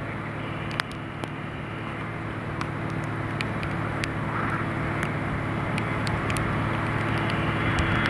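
A Pilatus PC-24's twin Williams FJ44 turbofan jet engines approaching, a steady hum and faint whine growing gradually louder. Scattered sharp ticks of raindrops sound over it.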